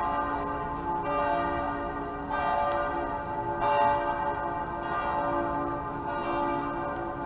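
Church bells pealing, several bells at different pitches overlapping, a new stroke about every second and a quarter with the tones ringing on between strikes.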